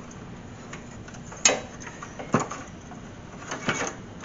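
Scattered sharp knocks and clinks of tools and steel transmission lines being handled during hand work under a car. The loudest comes about a second and a half in, another follows about a second later, and a short cluster comes near the end.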